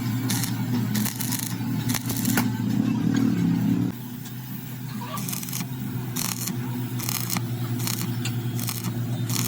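Workshop noise while a broken drive shaft is repaired: a steady machine hum, louder for the first four seconds or so, with short metallic scraping strokes repeating a little more than once a second after that.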